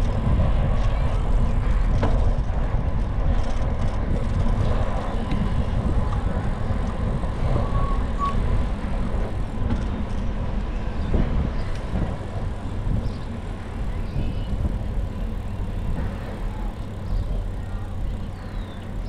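Steady rumbling noise of a bicycle ride: wind buffeting the microphone and tyres rolling on the path, heaviest at the low end, with a short faint chirp about eight seconds in.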